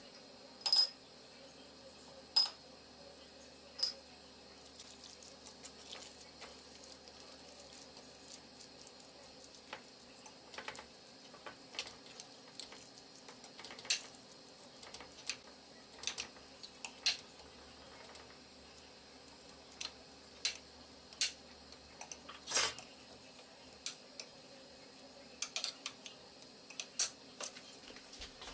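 A metal fork mixing crushed potatoes in a glass baking dish: irregular clinks and scrapes of the fork against the glass, the loudest clinks with a brief ring.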